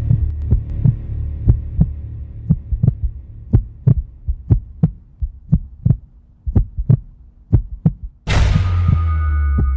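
Suspense sound effect: a heartbeat beating in pairs about once a second over a low hum that fades away. About eight seconds in a sudden loud hit breaks in and lingers as a low hum, with a few held high tones near the end.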